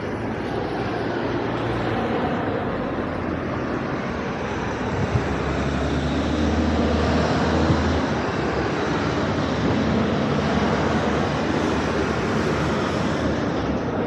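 Steady rumble of a passing vehicle, growing a little louder over the first few seconds and then holding, with a low hum strongest around the middle.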